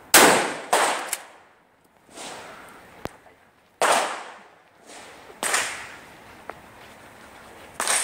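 A pump-action shotgun fires one shell: a single loud blast just after the start, dying away over about half a second. Several quieter sharp bangs and knocks follow over the next seconds, the strongest nearly four seconds in.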